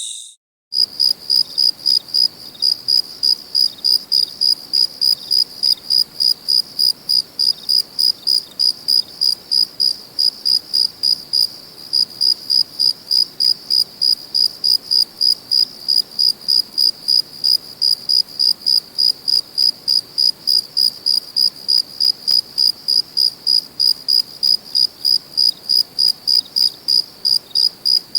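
Cricket chirping: a steady, even train of short high-pitched chirps, about two to three a second, starting just under a second in.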